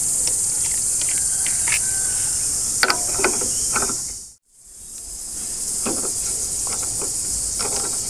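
A steady, high-pitched insect chorus, with light metallic clicks and taps from a magneto puller being fitted onto the engine's magneto rotor. All sound drops out briefly about halfway through.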